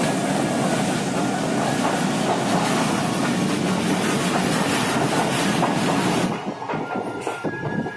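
Passenger train running, heard from aboard: a loud, steady rush of wheel and rail noise. About six seconds in it turns quieter, and separate clacks stand out.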